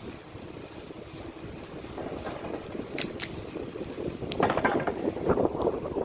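A moving bicycle rattling and clattering over a street surface, with wind rumbling on the microphone. A couple of sharp clicks come about three seconds in, and the rattling grows louder and rougher from about four seconds in.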